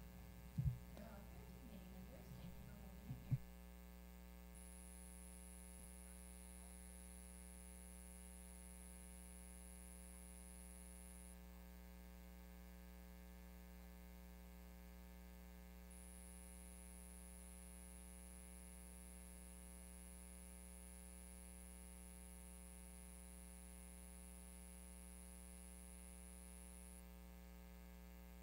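Near silence: a steady electrical mains hum on the recording line, with the witness's microphone switched off. There are faint brief sounds in the first few seconds, and a faint high-pitched tone comes in twice for several seconds each time.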